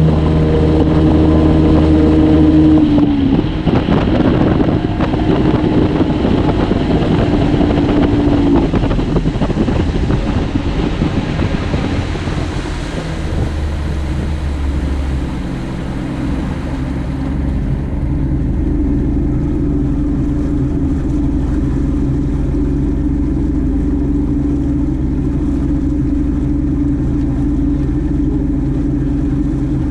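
Flats skiff's outboard motor running at speed with wind and water rushing past. About two-thirds of the way through the rush dies away and the motor settles into a lower, steady run as the boat slows.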